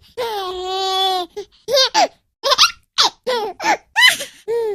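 Baby girl laughing: one long, steady vocal sound about a second long near the start, then a run of short, high-pitched bursts of laughter.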